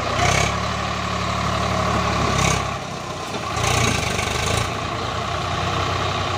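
Swaraj 744 FE tractor's three-cylinder diesel engine idling steadily; its note drops briefly about three seconds in, then picks up again.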